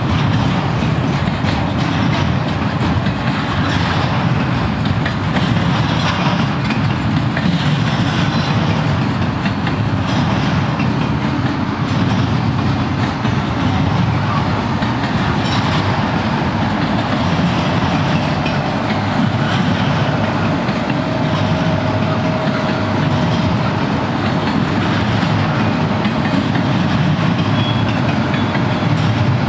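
Double-stack intermodal freight cars rolling past: a steady rumble of steel wheels on rail, with a regular clickety-clack as the wheel sets pass.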